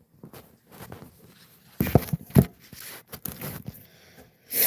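Handwork on a fiberglass door panel: irregular short scraping and rubbing strokes, two sharp knocks about two seconds in, and a brief harder rub near the end.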